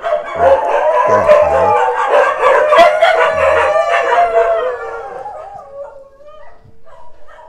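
Dogs howling together in long, wavering calls, loud at first and fading away about five seconds in.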